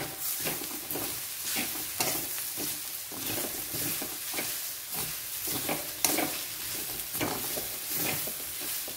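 Steel spoon stirring and scraping a dry stir-fry of taro leaves and grated coconut around a metal kadai, a stroke about every half second, over a steady light sizzle from the hot pan.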